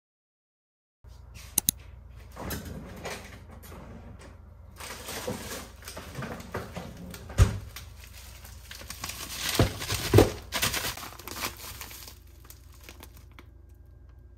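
Plastic packaging crinkling and rustling as a bag of frozen beef patties is handled, with scattered clicks and a few sharp knocks, the loudest about seven and ten seconds in.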